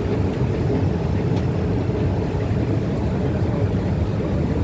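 Steady low rumble of a long escalator running, heard while riding it down.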